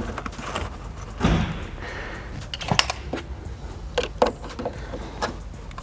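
Scattered small clicks and light knocks of car parts being handled and worked loose by hand, with a soft thump about a second in.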